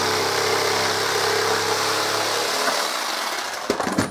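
Electric jigsaw cutting through an MDF board, running with a steady hum and hiss, then stopping about two and a half seconds in. A few short knocks follow near the end.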